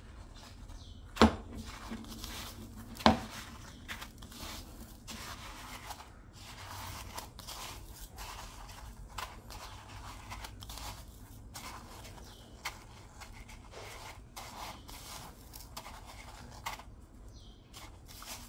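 Dry breadcrumbs rustling and scraping as hands press and rub them onto an egg-dipped round of bread in a bowl. Two sharp knocks about a second and three seconds in.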